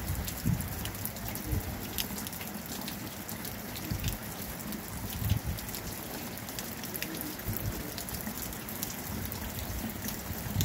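Steady rain falling, with scattered drops tapping sharply close by and occasional low thumps.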